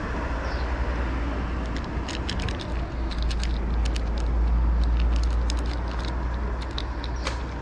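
A cat crunching dry kibble: a quick, irregular run of sharp crunches starting about two seconds in. Underneath is a steady low rumble of road traffic that swells in the middle.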